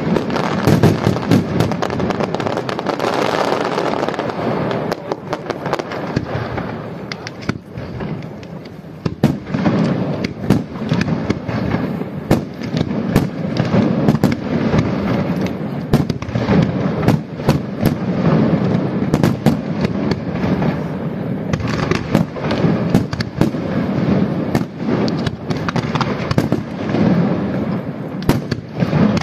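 Large fireworks display going off: rapid, overlapping bangs and crackles in a continuous barrage, easing off briefly about a quarter of the way in before building again.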